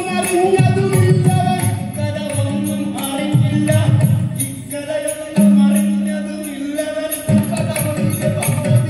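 Ottanthullal music: a man singing verse over a double-headed barrel drum, with small hand cymbals ringing in a steady beat. A long held note comes about halfway through.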